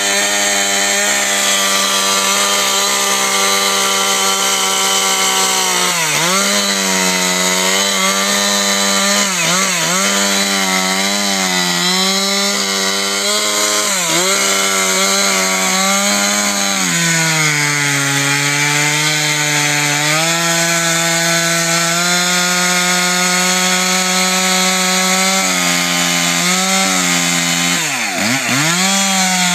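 Chainsaw running near full throttle while cutting through ice. Its engine note dips in pitch several times and sags for a few seconds around the middle as the cut loads it, then picks back up.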